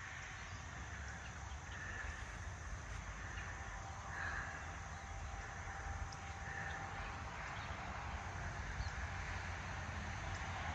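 Rural farm ambience: a steady low rumble, with a crow cawing a few times in the distance and a faint steady hum joining about halfway through.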